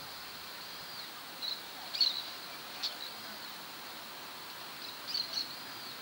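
Outdoor ambience: a steady faint high insect drone with several short bird chirps, a few of them in quick clusters.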